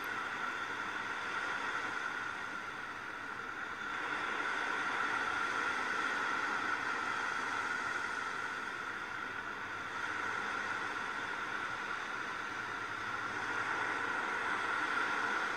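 Ocean surf washing on a shore: a steady wash of waves that swells and eases a few times.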